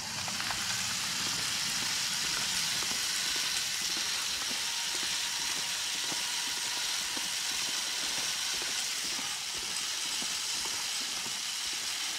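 Brick-built toy locomotive's electric train motors running steadily, heard as a high hiss with a faint whine and light ticking of the wheels on plastic track.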